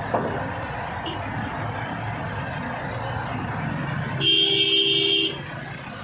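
Steady engine rumble of road-paving machinery, an asphalt paver and a Sakai road roller working fresh asphalt. About four seconds in, a vehicle horn sounds once for about a second, the loudest sound.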